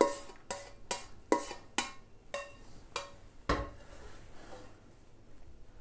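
A spatula tapping repeatedly against a wok and plate as sauce is scraped out, about two sharp knocks a second, each with a short ring. About three and a half seconds in, a heavier clank with a low thud as the wok is set down on the gas burner grate, then it goes quiet.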